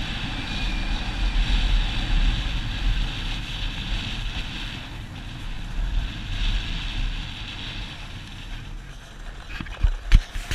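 Wind buffeting the microphone and a snowboard hissing over packed snow as it glides downhill; a few sharp knocks near the end.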